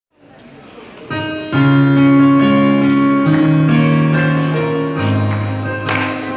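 Electronic keyboard playing slow, held chords. It comes in faintly about a second in, grows louder half a second later, and the chords change every second or so.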